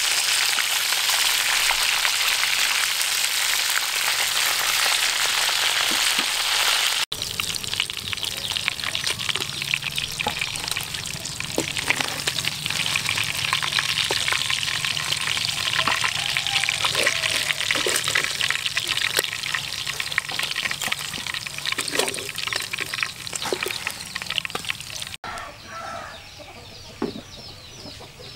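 Fish pieces frying in hot oil in a wok, sizzling hard at first. After a cut about 7 s in, the oil keeps crackling and spitting while a metal spatula knocks and scrapes in the wok, lifting the fried pieces out. Near the end the frying stops and it goes much quieter.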